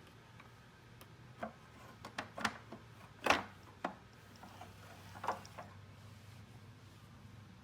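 A series of light clicks and knocks at uneven intervals, the loudest about three seconds in, over a faint steady low hum.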